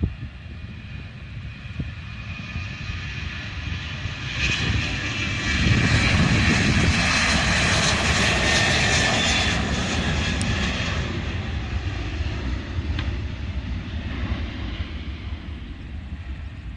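Airplane flying past: engine noise that swells about four seconds in, is loudest for several seconds, then slowly fades.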